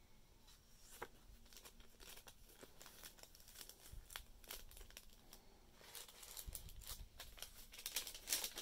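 Faint rustling and crinkling of paper as flashcards and a paper pocket are handled between the pages of a handmade paper journal, with scattered light crackles.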